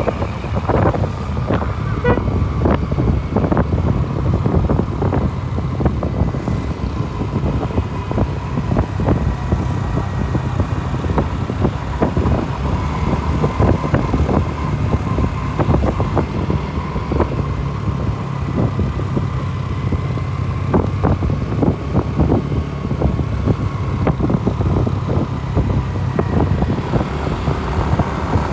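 Motor vehicle running steadily on the road, with a constant low engine rumble and many short noisy knocks or gusts. A faint steady whine comes in about halfway through and holds to the end.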